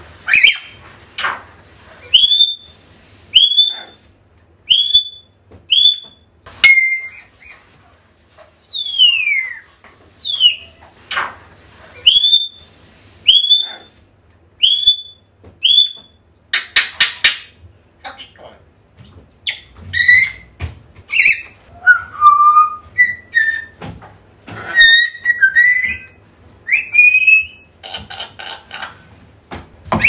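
African grey parrot calls: quick runs of short rising whistles, a few long falling whistles, rapid rattling calls, and lower squawks.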